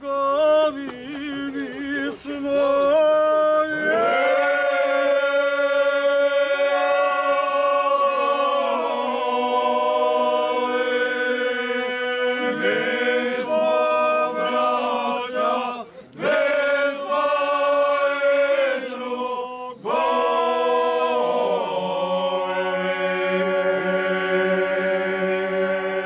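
A group of men singing traditional bećarac unaccompanied, several voices holding long drawn-out notes together in chords. The singing breaks off briefly twice about two-thirds of the way through, then resumes with a lower voice joining the held chord.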